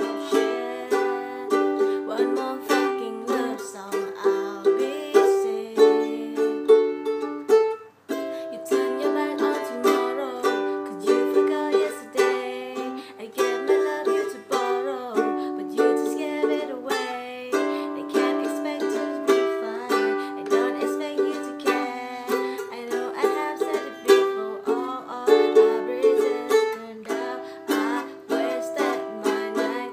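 Ukulele playing the Cadd9, G, Em, D chord progression, strummed in a steady rhythm with a brief break about eight seconds in.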